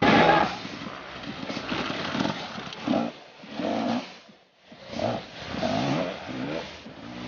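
Enduro dirt bike's engine revving in repeated surges as the rider accelerates along the track, loudest right at the start and dropping away briefly about four and a half seconds in.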